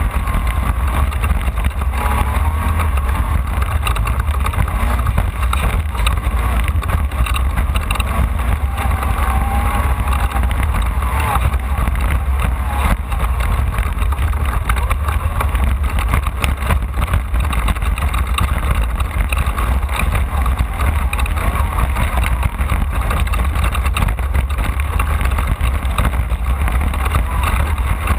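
Off-road race car driven hard: a loud, steady engine rumble with constant rattling and knocking from the car running over rough ground.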